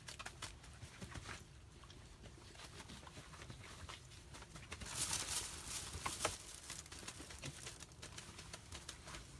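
Quiet handling sounds: scattered small clicks and taps, with a brief rustle about five seconds in.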